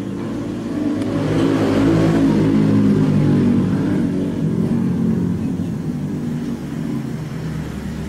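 A motor vehicle's engine running, growing louder over the first two to three seconds and then slowly fading, like a vehicle passing.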